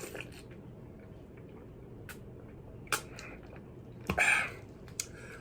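Quiet mouth and eating sounds: a few sharp clicks, one a little before three seconds in, and a short noisy burst just after four seconds in.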